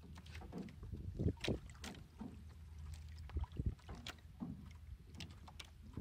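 Water lapping and slapping against the hull of a small outrigger fishing boat, with scattered light knocks and splashes over a low steady rumble.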